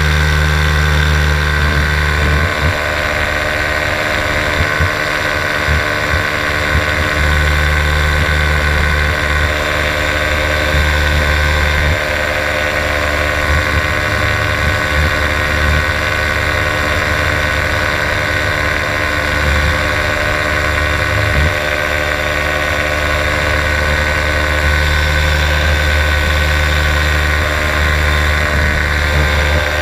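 Paramotor engine running steadily in flight, a constant drone that does not change, with wind noise buffeting the microphone.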